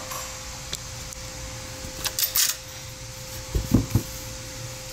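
Marlin 1894 lever-action rifle being handled: a few light clicks, a cluster of sharper clicks about two seconds in, and a couple of dull knocks a second and a half later, over a steady hum.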